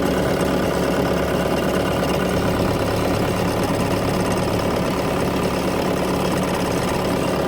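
Bobcat T770 skid steer's diesel engine idling steadily at an even, unchanging speed. It runs clean and smooth, with no blow-by and no vibration, in the seller's assessment.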